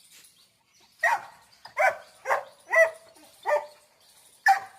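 A Labrador barking six times in quick, uneven succession, starting about a second in.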